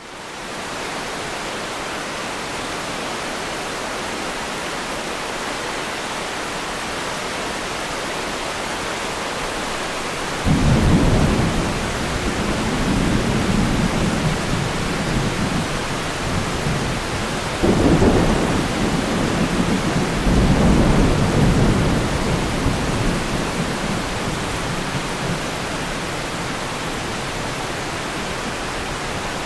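Thunderstorm: steady rain hiss, with thunder breaking in suddenly about ten seconds in and rolling on as low rumbles. Two more rumbles come in the second half and fade away.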